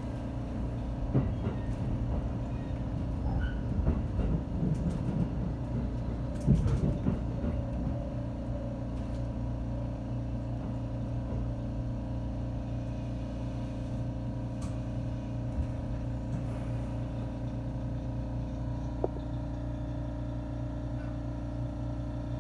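313 series electric train running, heard from inside the carriage: a steady rumble and hum, with knocks and rattles over the first eight seconds or so, then an even drone.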